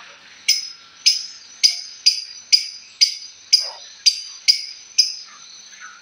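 Small caged parrot giving a sharp, high chirp over and over, about twice a second, ten times, stopping about five seconds in.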